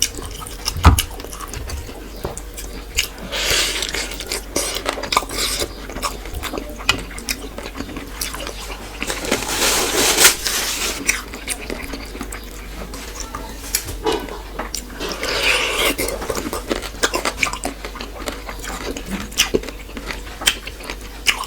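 Close-miked eating: a person chewing and biting a meal of fish, rice and curry, with many short wet clicks from the mouth and a few longer noisy stretches, about a third, half and three quarters of the way through.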